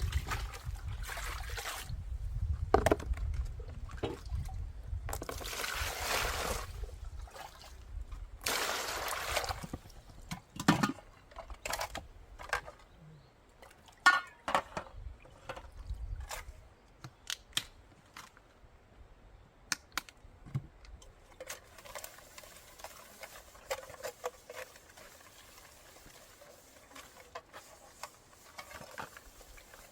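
Dishes being washed by hand: water pouring and splashing in two longer rushes, with many short clinks and knocks of bowls and utensils.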